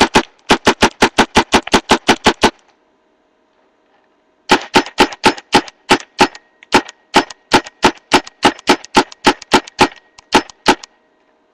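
A paintball gun firing in rapid strings at about five or six shots a second: one string stops about two and a half seconds in, and after a two-second pause a longer string runs for about six seconds, slightly uneven in pace near its end.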